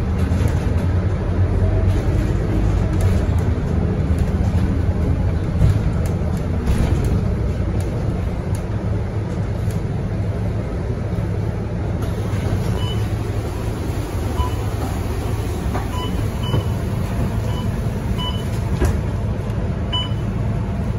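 Scania K230UB single-decker bus's diesel engine running steadily, heard from inside the cabin, with occasional clicks and rattles. From about halfway in, short electronic beeps come at irregular intervals from the onboard fare-card readers as passengers tap their cards.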